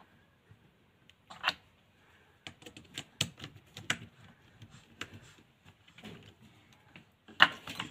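Screwdriver working the terminal screws of a plastic ceiling rose: scattered light clicks and taps, with a sharper click near the end.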